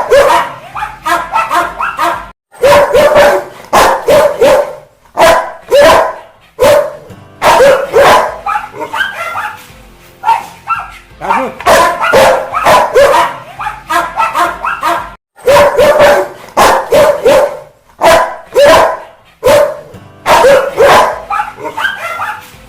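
A Rottweiler barking angrily in loud bursts of rapid barks, a new burst coming about every four to five seconds with brief pauses between them.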